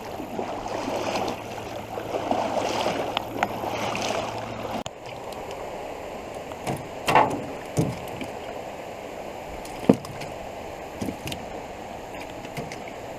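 Fast-flowing creek water rushing around a canoe, with a low steady hum that stops about five seconds in and a few short sharp knocks later on.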